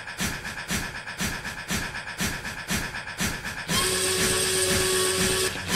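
Steam locomotive chuffing in an even rhythm of about four beats a second. About two-thirds of the way through it gives way to a steady, hissing steam whistle.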